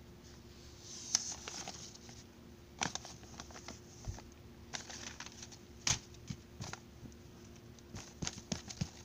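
Fabric rustling and soft scuffs as plush toys and the recording phone are moved over a bedspread, coming in several short bursts over a faint steady hum.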